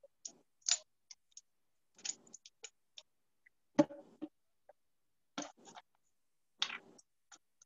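A string of short, irregular clinks and clicks from a ring of metal measuring spoons being handled while a plastic vanilla bottle is opened.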